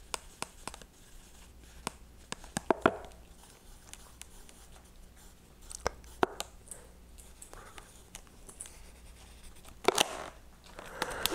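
A pen drawing on a latex balloon: light scratching with scattered small clicks and taps, a few of them sharper.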